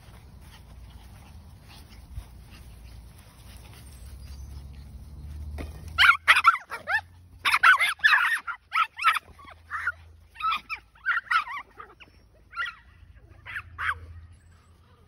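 Yorkshire terrier puppies yapping and yipping in play: short high-pitched yaps come in a quick, dense run from about six seconds in, then thin out into scattered yips.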